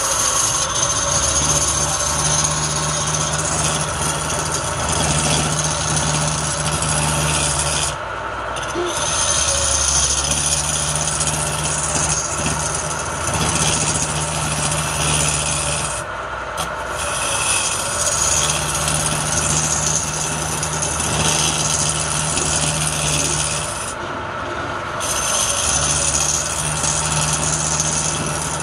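Wood lathe spinning a pale palm-wood blank while a hand-held chisel cuts into it: a steady scraping, shearing rasp of long stringy shavings over the lathe's running hum. The cutting breaks off briefly three times, about every eight seconds, as the tool comes off the wood.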